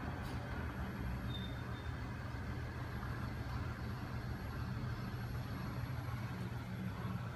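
Home-built magnet crank machine running steadily, its small 12 V electric motor turning a spinning flywheel and swinging aluminium linkages, making a steady low mechanical hum.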